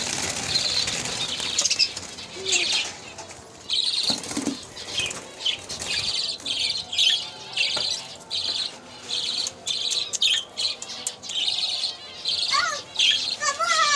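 Budgies chirping in short, rapid bursts about twice a second, with wings fluttering. Near the end come a few descending whistled calls.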